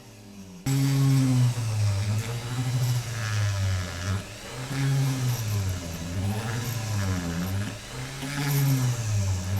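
Small electric drill motor driving a tap to cut a screw thread in a diecast zinc casting. It starts suddenly and runs with its pitch repeatedly rising and falling as the speed changes under load.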